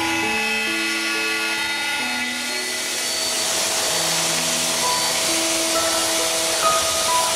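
Background music with held notes; about a third of the way in, a power sander on wood joins it with a steady whine and a hiss.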